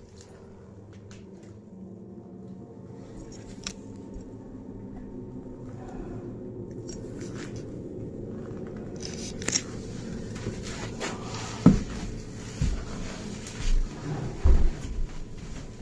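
Footsteps and knocks inside an empty building, with scattered small clicks and crackles, then several heavier thumps in the last few seconds.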